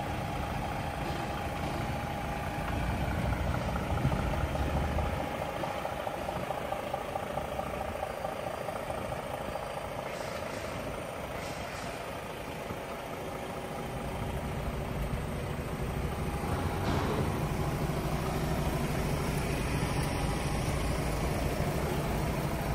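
DAF XF480 truck's PACCAR MX-13 straight-six diesel engine idling steadily.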